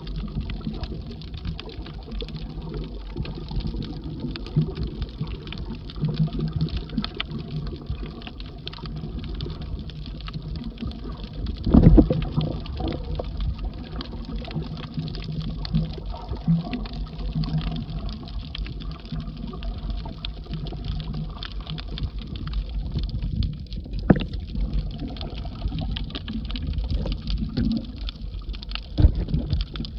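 Underwater ambience picked up by a camera held under the sea on a coral reef: a steady low rumble of water with many faint crackling clicks. A few thumps break through, the loudest about twelve seconds in and others near the end.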